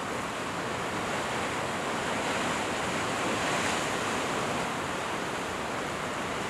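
Ocean surf washing over rocks on the shore: a steady rush of water.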